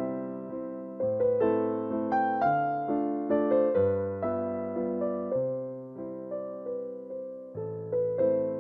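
Background piano music: a slow melody of struck notes that fade away, over low bass notes that change every second or two.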